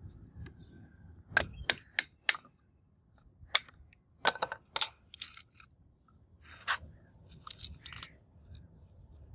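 Sharp knocks of a wooden mallet striking the rusty angle grinder's plastic motor housing to drive it off the gear head: several taps in quick succession, then a few more scattered knocks and rattles as the housing comes loose.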